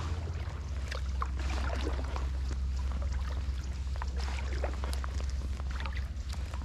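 Kayak paddle dipping in calm water, with scattered drips and small splashes from the paddle blades over a steady low rumble.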